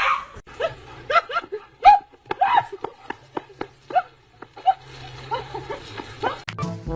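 A pet animal making a run of short, repeated calls, about two a second.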